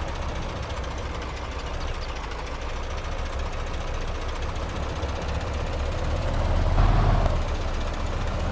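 Radio-controlled model construction machine running: a steady engine-like rumble with a faint whine, swelling briefly about seven seconds in.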